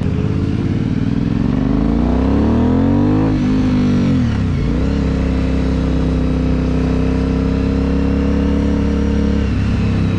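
Aprilia Dorsoduro 750's V-twin engine accelerating, its pitch rising for about three seconds, then dropping sharply and settling into steady cruising revs.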